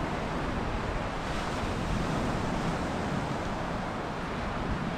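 Steady wash of sea surf on a beach, with wind rumbling on the microphone.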